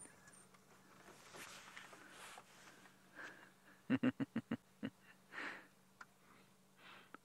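African wild dogs making short breathy sounds at close range: a quick run of about six huffs about four seconds in, then a longer breathy puff a second later.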